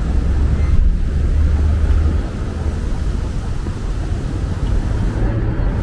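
Downtown street ambience: a steady low rumble of traffic, a little louder for the first two seconds and then easing.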